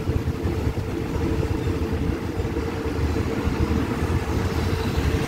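Train rolling at reduced speed, a steady low rumble with a steady hum above it.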